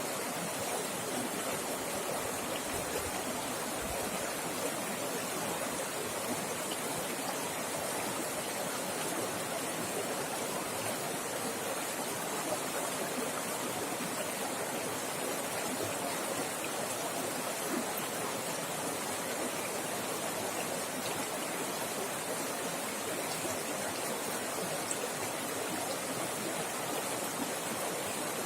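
River water flowing fast and rushing over rocks, a steady even rush with no breaks.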